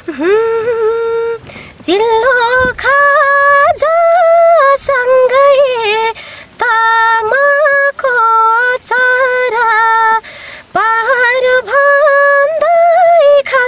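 A woman singing a Nepali folk song unaccompanied, in a high voice with long held notes that waver and turn at the ends of phrases, broken by short breaths.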